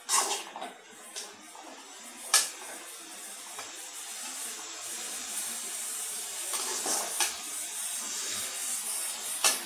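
Prawns and tomato pieces sizzling in oil in an aluminium kadai: a steady hiss that grows a little louder after a few seconds. A metal spatula clacks and scrapes against the pan now and then, sharpest about two seconds in and again near the end.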